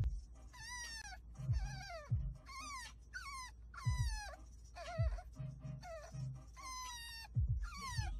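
French bulldog puppy whining in a series of about ten high, falling cries, over the steady low rumble of the car it rides in.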